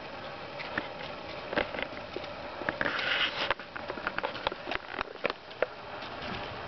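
Bull moose walking past at close range, its hooves clicking and crunching on a gravel and stone path in an uneven string of steps. About three seconds in comes a short breathy sniff.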